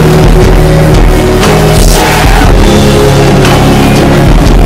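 Loud rock-style music with singing.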